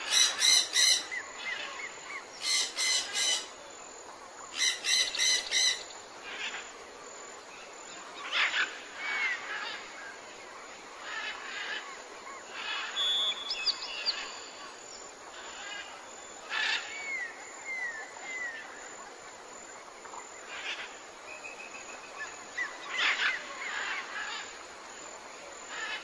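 Birds calling and singing: three bursts of rapid repeated high notes in the first six seconds, then scattered short chirps and whistles over a steady background hiss.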